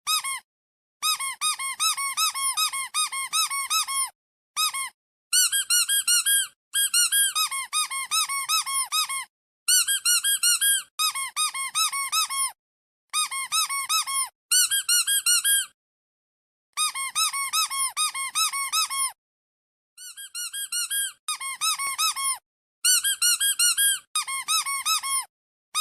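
Rubber squeaky toy squeezed over and over, giving runs of quick high squeaks, about four or five a second, each rising and falling in pitch. The runs are cut apart by short, fully silent gaps.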